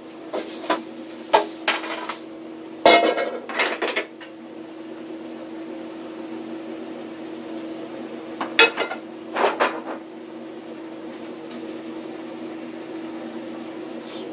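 Woks, metal pans and plates clattering against each other and the gas range as a cook plates food, in a flurry during the first few seconds and again around nine seconds in. A steady hum from the kitchen runs underneath.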